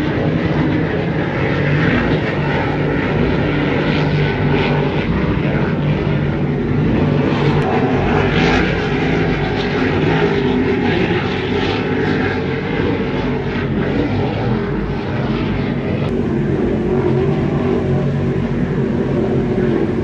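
Engines of several offshore racing powerboats running at speed, heard as a steady, loud drone.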